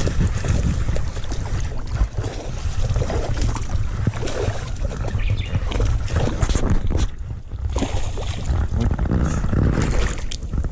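Wind rumbling on the microphone over repeated clicks, knocks and rustles of fishing tackle being handled while a hooked bass is reeled in and landed.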